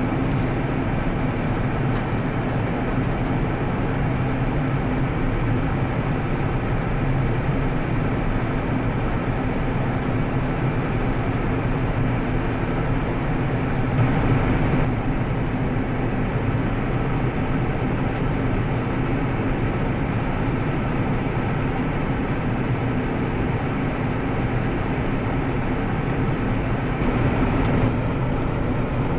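Airbus A340-600 engines running in a steady drone, with several constant hum tones and no rise or fall in level.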